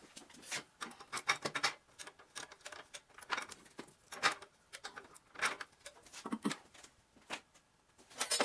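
Irregular rubbing, scraping and light knocks of objects being handled, in short scattered bursts with brief pauses between.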